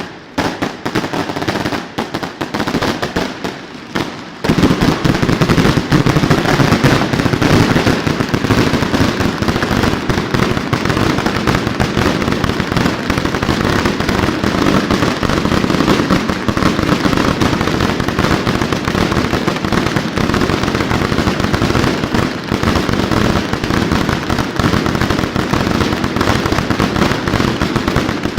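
Fireworks display firing: rapid crackling shots and bursts, thickening about four seconds in into a dense, continuous barrage of overlapping bangs.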